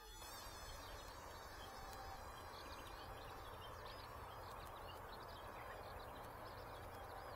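Steady outdoor background hiss with many faint, high, wavering chirps from small creatures.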